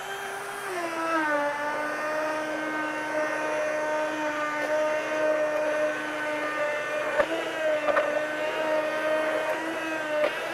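Handheld immersion blender running in a pot of soup, pureeing butter into it. A steady motor whine drops slightly in pitch about a second in, with a couple of light knocks later on.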